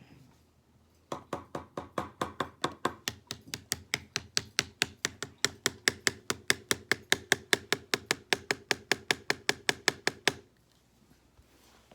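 Rapid, evenly spaced mechanical clicking, about five clicks a second, growing louder over some nine seconds and then stopping abruptly.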